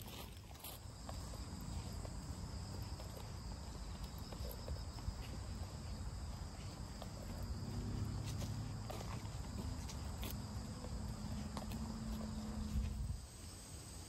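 Insects chirring steadily with a thin, high, continuous tone, over a low rumble and scattered soft footsteps on a dirt trail strewn with dry leaves. The sound drops a little near the end.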